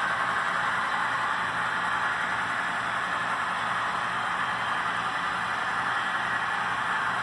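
Model freight train of hopper cars rolling along the track: a steady, even whir with no separate clicks or knocks.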